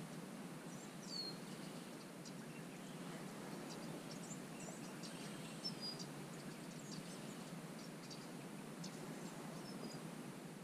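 Faint outdoor birdsong: scattered short high chirps and a few downward-sliding whistles over a steady low background hiss.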